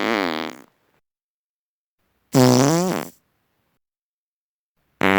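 Human farts, each with a clear pitch: one trailing off in the first moment, a short one of under a second about two and a half seconds in, and another starting just before the end.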